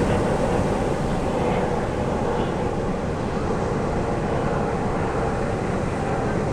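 Ocean surf breaking on a sandy beach: a steady low rumbling wash of waves, without clear swells or pauses.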